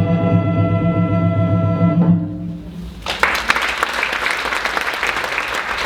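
A small live music ensemble holds a closing chord that stops about two seconds in and rings away; about three seconds in, the audience breaks into applause.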